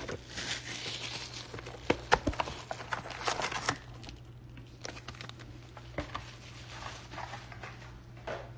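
A cardboard trading-card box being opened and its sealed foil card pack lifted out by hand: rustling and crinkling of packaging with scattered taps and clicks, busiest in the first four seconds and sparser after.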